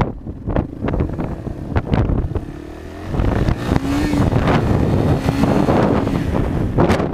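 Yamaha XT225 single-cylinder four-stroke engine running under way on a gravel road, with wind buffeting the helmet microphone and scattered knocks. It all gets louder about three seconds in.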